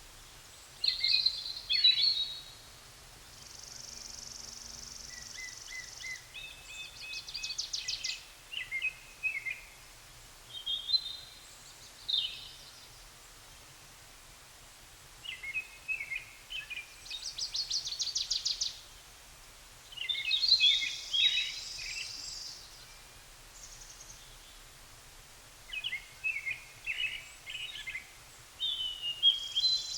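Songbirds singing in bursts of quick chirps and trills every few seconds, with short quiet pauses between phrases.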